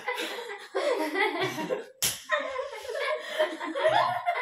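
Several young people laughing and giggling together, with a single sharp click about two seconds in.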